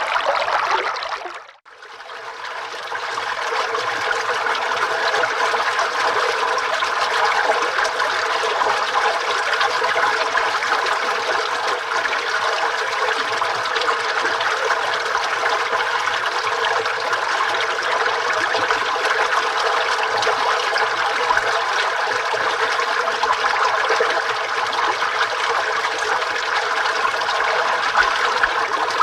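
Running water rushing steadily. About a second and a half in, one water recording fades out and the next fades back in.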